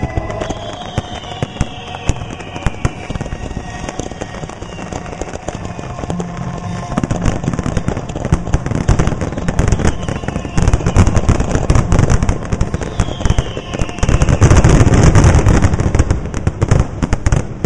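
Aerial fireworks finale: rapid, overlapping shell bursts and crackle that grow denser and louder, with the heaviest barrage about 14 to 16 seconds in.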